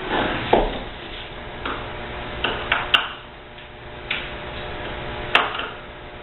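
Irregular clicks, knocks and short scrapes of tools and metal and plastic parts being handled while a dishwasher is taken apart.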